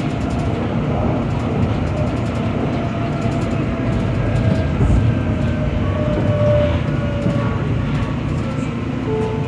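Siemens SD160 light rail car running on the track, a steady rumble of wheels on rails heard from the cab. Over it, a faint whine slowly falls in pitch as the train draws up to a station platform.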